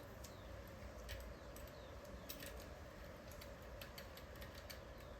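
Faint, irregular light clicks of a new lock washer being handled and fitted over the front sprocket on the countershaft.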